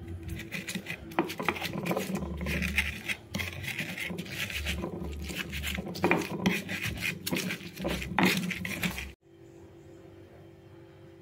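Stone pestle grinding boiled chillies and seasonings on a flat stone mortar (cobek): irregular rough scraping strokes with knocks of stone on stone, cutting off suddenly about nine seconds in.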